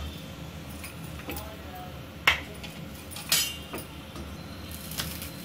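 A few sharp clinks and taps as hands press and stretch parotta dough on a hard work surface. The loudest comes about two seconds in, and another a second later rings briefly.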